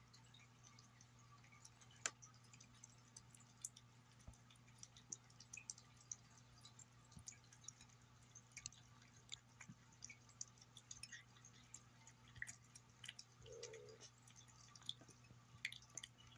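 A cat eating wet tuna food from a glass plate: faint, irregular wet smacks and clicks of chewing and licking, a few a second, over a low steady hum.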